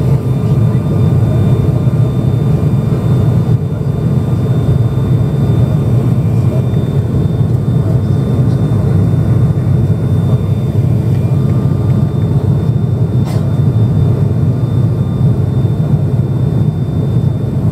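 Steady low drone of an ATR turboprop airliner's twin turboprop engines and propellers, heard inside the cabin during the climb after takeoff, with faint steady whining tones above it.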